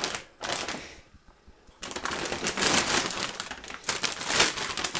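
Plastic packaging crinkling and rustling as bags of frozen chicken fillets are handled and pulled from a plastic carrier bag. There is a brief rustle, a short lull about a second in, then a longer spell of dense crackly rustling from about two seconds in.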